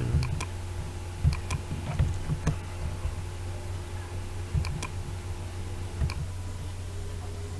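Scattered sharp clicks from a computer mouse and keyboard being worked, over a steady low hum. A faint steady tone stops about six seconds in.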